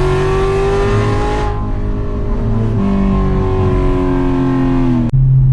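Cammed C7 Corvette's 6.2 L V8 under load on track, its pitch climbing slowly as it pulls, then easing about a second and a half in and holding steady, sagging slightly near the end. Just before the end the sound changes abruptly to a steady low drone.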